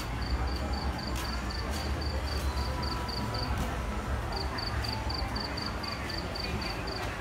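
A cricket chirping in an even rhythm of about four high chirps a second. It breaks off about three and a half seconds in and starts again nearly a second later, over a steady low rumble with a few sharp knocks.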